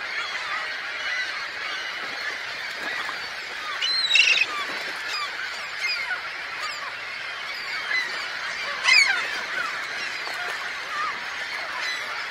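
A large flock of waterbirds calling together: a dense chatter of many overlapping calls, with a few louder calls about four seconds and nine seconds in.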